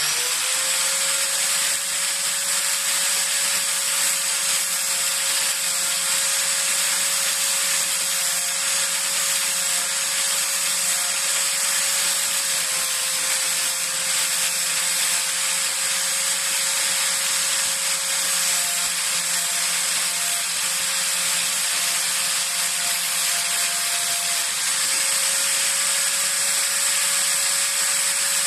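Electric angle grinder fitted with a sanding disc, running steadily at full speed with a steady whine over a hiss, while the edge of a steel wood chisel is ground against the disc to sharpen it.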